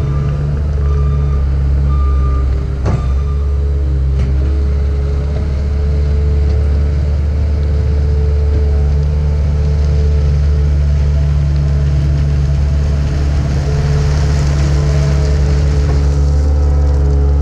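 Cat 279D compact track loader's diesel engine running steadily under load, its backup alarm beeping during the first couple of seconds. A single clank about three seconds in.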